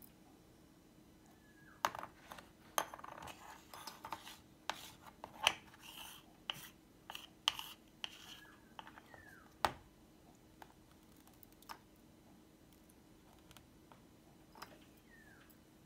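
Small plastic cups, lids and containers being handled on a tabletop, with sequins being moved: a busy run of clicks, taps and short scrapes for several seconds, then a few scattered clicks.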